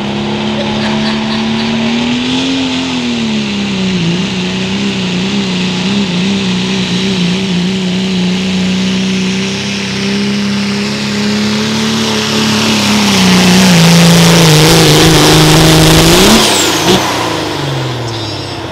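Turbocharged diesel pickup truck engine at full throttle under the load of a pulling sled: one steady engine note with a slight wobble, dipping a few seconds in and loudest near the end. Near the end it rises briefly, then falls away as the throttle comes off at the end of the pull.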